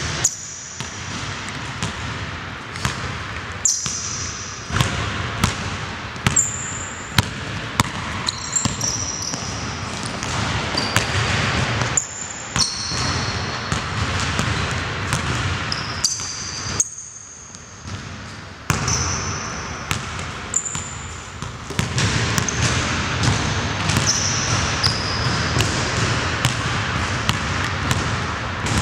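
A basketball dribbled and bounced on a hardwood gym floor, many sharp bounces throughout, with sneakers repeatedly squeaking in short high squeals as the players cut and change direction.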